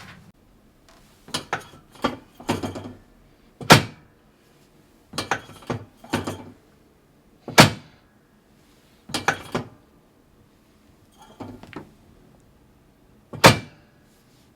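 Sharp knocks and thunks from a chiropractic adjustment table during adjustments: clusters of smaller clacks with three single, much louder thunks standing out.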